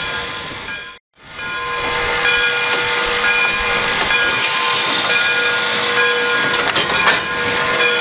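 Steam locomotive Frisco 1630, a 2-8-0, hissing steam with a steady whine of several pitches over it, broken by a moment of silence about a second in.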